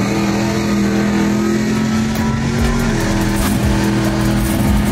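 Race engine of a 1969 Camaro drag car running at a steady high idle just after revving up. About three seconds in, it settles to a slightly lower idle.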